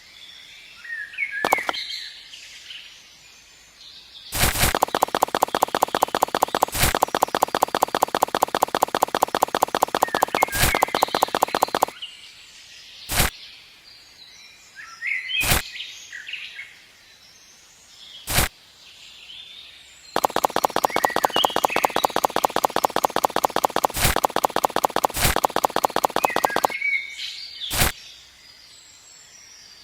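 Birds chirping, broken twice by several seconds of a loud, fast, evenly pulsing mechanical rattle that stops abruptly. Sharp single clicks fall at intervals throughout.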